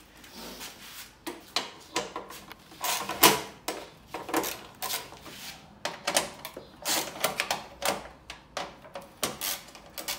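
Hand socket ratchet clicking in short irregular runs as bolts on a car's front radiator support are backed out, with a few light metal clinks.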